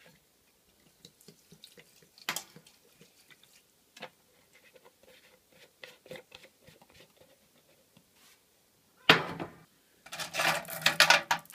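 Steel chainsaw chain clinking and rattling in a plastic tub of acetone as a gloved hand stirs it, a dense clatter over the last second and a half. Faint handling clicks come before, and a short louder rush of noise about nine seconds in.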